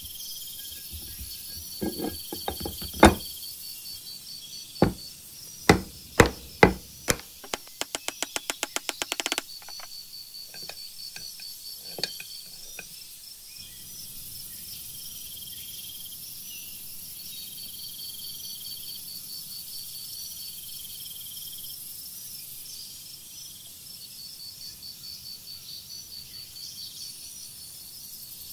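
Metal knocks and clicks as a two-stroke chainsaw crankshaft and its ball bearing are seated into the crankcase. There are several sharp knocks, then a quick run of even clicks for about two seconds, then a few light taps, and after that it stays quiet. Steady insect-like chirping continues in the background.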